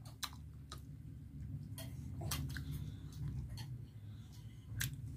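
A person chewing a mouthful of chicken and rice, with scattered sharp mouth clicks and smacks over a low steady hum.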